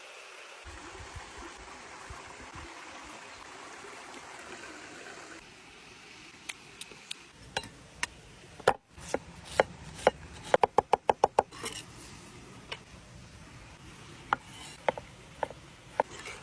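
A steady hiss for about the first five seconds. Then a knife chopping on a wooden board: single chops, a quick run of about eight chops in a second, then more scattered chops.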